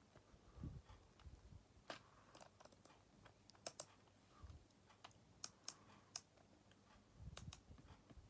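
Faint, irregular small plastic clicks and ticks as fingers handle and turn the gear and tape spool of an opened correction tape roller, with a few dull handling bumps.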